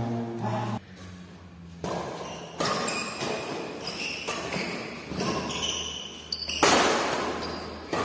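Badminton rally in a large echoing hall: several sharp racket strikes on the shuttlecock and players' footfalls on the tiled floor, each hit ringing off the walls, the loudest about seven seconds in. A snatch of music cuts off about a second in.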